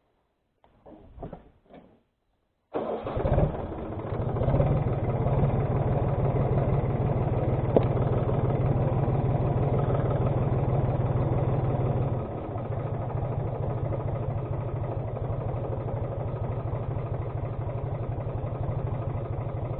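Tractor diesel engine comes in suddenly about three seconds in and runs steadily with a fast even beat. It drops a little in level about twelve seconds in and runs on more softly.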